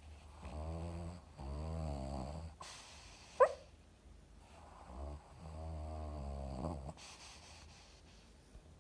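A Papillon dog snoring: several drawn-out, wavering snores with breathing between them. About three and a half seconds in, a short high squeak rising in pitch is the loudest sound.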